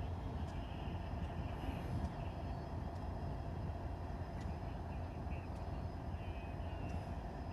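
Union Pacific GE diesel-electric locomotives running steadily at close range, a low, even rumble. A few faint chirps sit high above it.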